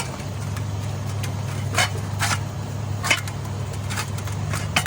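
A steady low hum with four sharp taps or clicks scattered through it.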